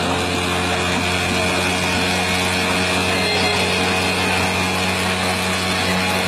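Cotton candy machine running: a steady motor hum with a high, even whine from the spinning head.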